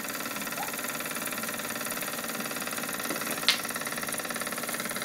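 Jensen #60 toy steam engine running steadily under steam, its flywheel driving a line shaft through spring belts, with a fast, even beat. A single sharp click about three and a half seconds in.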